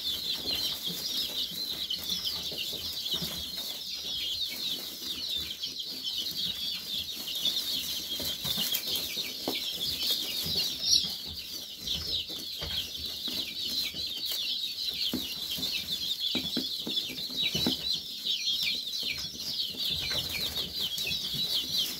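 A flock of young chicks, several weeks old, peeping without a break in a dense chorus of rapid high chirps. Scattered taps and rustles come from them pecking in the hay, with one louder tap about halfway through.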